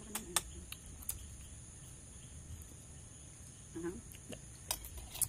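Crickets chirring steadily in a high-pitched band, with a few sharp light clicks scattered through.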